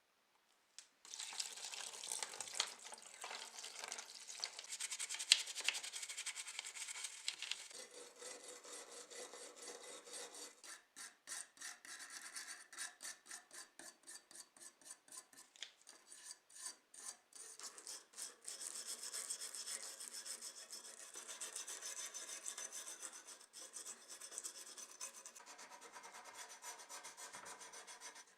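Hand abrading of a hard surface: continuous back-and-forth rubbing and scraping, which turns into separate even strokes, about three a second, around the middle.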